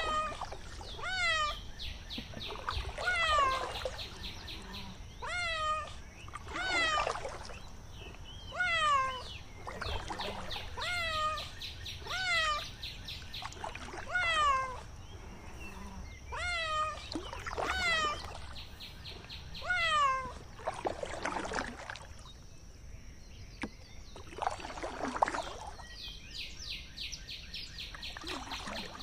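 Kittens meowing again and again, short meows that fall in pitch every second or two. In stretches they are joined by the ducklings' high, rapid peeping, with water lapping softly.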